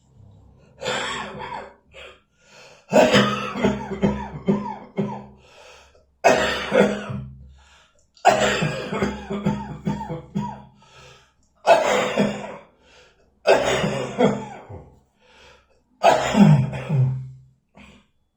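A person with bronchitis coughing in about seven fits, one every two to three seconds. Each fit is a quick run of several coughs.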